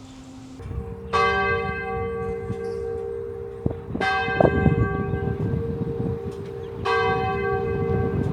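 A large bell tolling, struck three times about three seconds apart, each stroke ringing on into the next.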